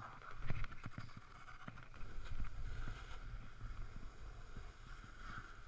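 Snowboard sliding across a plastic jib box and then riding on packed snow: a steady scraping hiss of the board's base and edges, with a few short scrapes or knocks, the loudest about half a second in, over a low wind rumble on the microphone.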